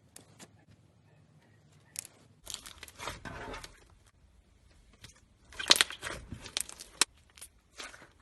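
Slime being pressed and played with by hand, giving irregular crackling and popping clicks with short squishy stretches. The densest, loudest run of crackles comes a little past the middle.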